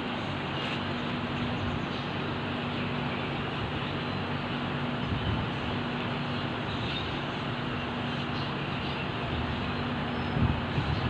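A steady low motor hum over constant rushing noise, with a few faint, short bird chirps above it.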